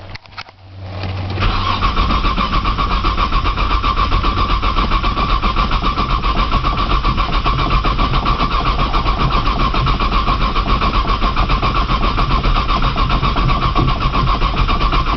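The starter of a 1995 Nissan Maxima's 3.0-litre V6 cranks the cold engine over in a steady, even rhythm, starting about a second and a half in. The engine never catches: it is a hard cold no-start, which the owner suspects is down to a bad sensor.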